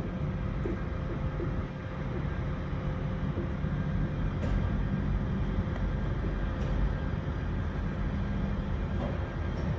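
Steady low rumble of heavy diesel machinery, with a faint steady hum over it and a few light clicks.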